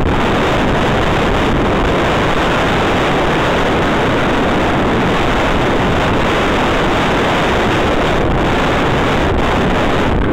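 Loud, steady wind rushing over the microphone of a camera on a mountain bike speeding downhill on a loose gravel track.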